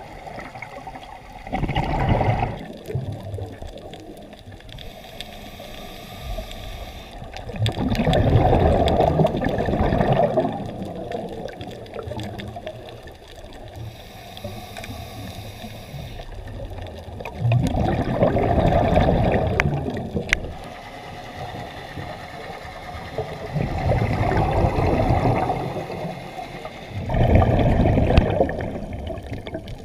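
Scuba regulator exhaust: a diver's exhaled air leaving as bubbles, heard underwater as five loud bubbling rushes of one to three seconds each, spaced several seconds apart, with a low hiss between them.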